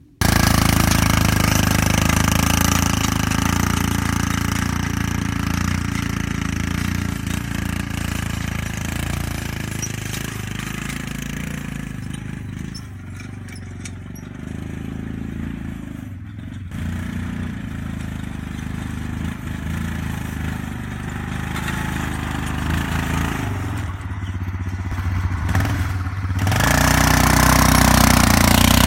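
ATV engine running steadily under load as it pulls a potato digger through the soil, dipping in level about halfway through and rising again near the end.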